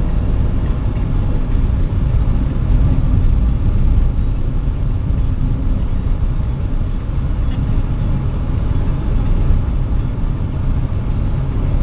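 Steady low rumble of a car on the move: engine and road noise, with no distinct events.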